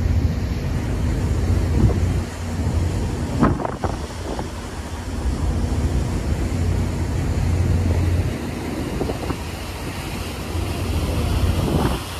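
Wind blowing across the microphone on the open deck of a fast-moving passenger ferry, over the steady low drone of its engines and the rush of water. Gusts buffet the microphone briefly about three and a half seconds in and again near the end.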